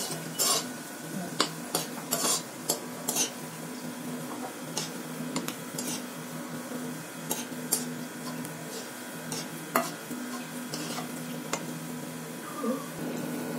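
Seedai balls deep-frying in oil in a kadai with a steady sizzle, while a steel slotted spoon stirs them and clicks against the pan. The clicks come several times a second in the first few seconds and only now and then after that.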